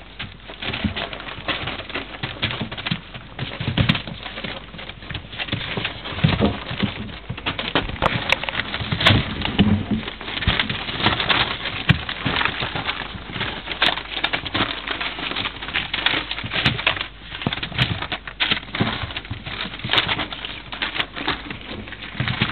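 Puppies scampering and tussling over sheets of newspaper on a wooden floor: steady paper rustling and crackling mixed with the patter of claws.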